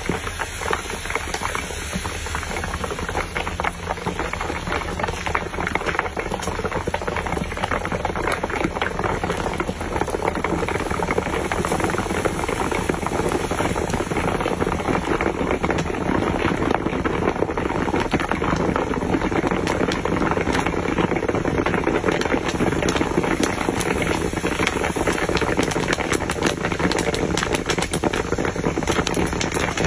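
Popcorn popping in hot oil in a large iron wok: a steady sizzle packed with rapid pops that grow denser and a little louder as the batch fills the pan.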